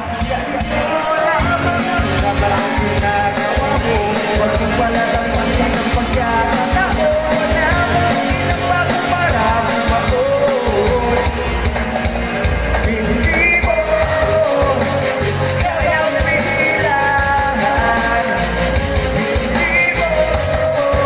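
Videoke machine playing a loud rock-style backing track with a steady drum beat and a wavering melody line over it, which may be a voice singing along.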